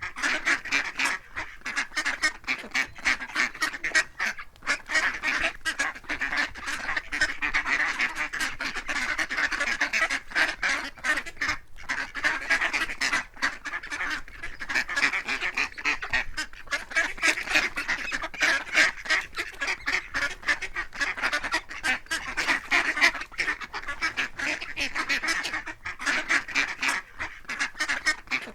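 A flock of ducks quacking continuously, many calls overlapping with no pauses.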